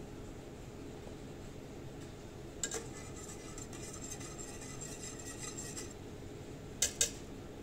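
A wire whisk stirring cream in a stainless steel pot, its metal wires scraping and clinking against the pot for about three seconds, starting a few seconds in. Two sharp metal clinks follow near the end.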